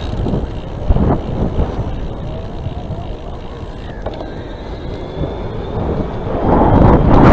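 Wind rushing over the microphone and road rumble while riding an electric bicycle, with irregular gusts and a louder rush building near the end.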